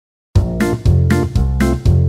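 Background music starting about a third of a second in: chords struck about four times a second over a low bass.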